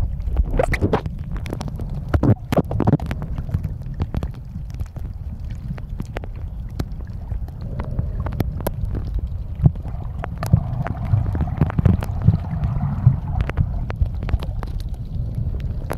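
Muffled underwater sound picked up by a submerged camera: a steady low rumble of water movement, dotted with many small sharp clicks and pops.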